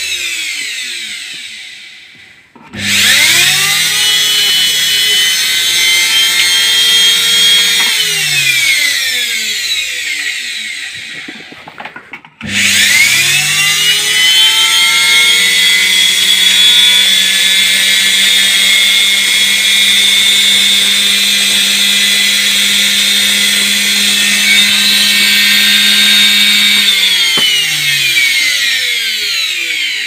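Indesit washing machine's brushed universal motor, its bearings freshly greased, run straight off the mains on the bench. It spins up with a rising whine about three seconds in, runs for about five seconds, coasts down with a falling whine, then is switched on again about twelve seconds in, runs steadily with a high whine and brush hiss over a low hum, and winds down near the end.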